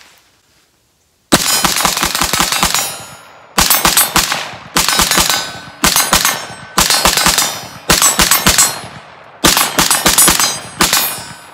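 Short-barrelled AR-15 with a 7-inch 5.56 barrel and muzzle brake firing rapidly: about eight quick strings of sharp, loud shots with short pauses between them, starting about a second in.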